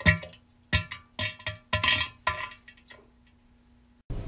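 A quick run of about six short, wet, sputtering farts in the first three seconds. Guitar music starts near the end.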